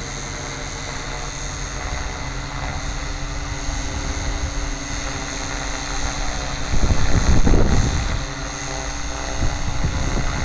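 Gaui RC helicopter flying inverted in a steady hover: an even whine from its motor and rotor blades. About seven seconds in, a louder low rushing swell rises for a second or so, then fades.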